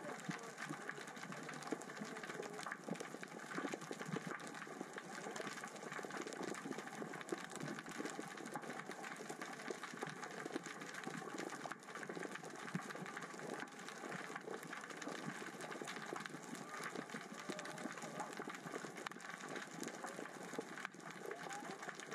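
Steady dense crackling and clicking heard underwater, from small rocks rolling across the sea floor in the current and tide.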